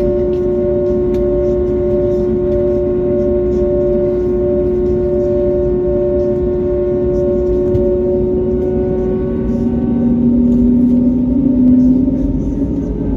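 Airbus A321neo's engines idling, heard inside the cabin as a steady hum. About nine seconds in, a lower tone comes in, rises in pitch and grows louder.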